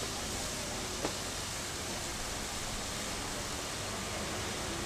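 Steady rushing hiss of a fire hydrant jetting water high into the air and splashing down, with a single sharp click about a second in.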